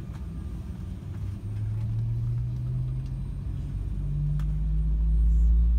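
Embraer 195's turbofan engines heard from inside the cabin, spooling up: a low hum that steps up in pitch, with the rumble growing louder toward the end.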